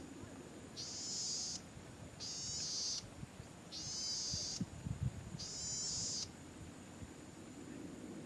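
Golden-headed cisticola singing: four short, high buzzing phrases, about one every second and a half. A few soft low knocks near the middle.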